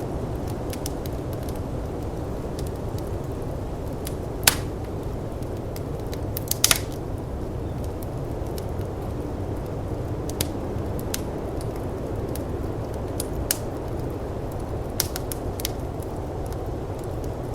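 Wood fire crackling, with scattered sharp pops, the loudest a little over four seconds in and a quick cluster about six and a half seconds in. Underneath runs a steady low rush of blizzard wind.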